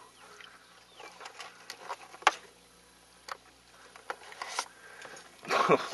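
Scattered light knocks and clicks of gear in a canoe, with one sharp click about two seconds in and a short, louder rush of noise near the end.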